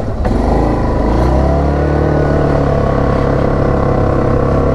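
Yamaha Grizzly 700 ATV's single-cylinder four-stroke engine pulling away: the revs pick up in the first second, then it runs steadily under way.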